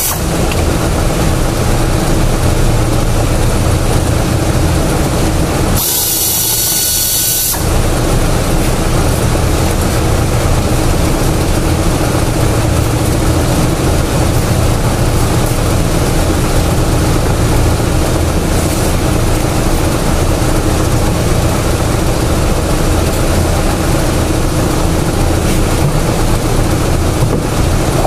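A steady machine drone with a low hum runs throughout. About six seconds in it gives way for a second and a half to a loud hiss.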